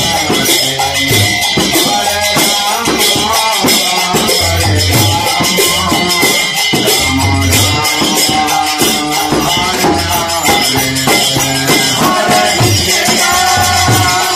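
Music with a fast, steady rattling percussion over a recurring low drum pattern.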